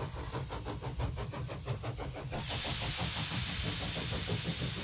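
Steam-engine sound effect for an animated logo: a rhythmic mechanical clatter at about six beats a second, then a loud steady hiss of released steam from about two seconds in over a low rumble.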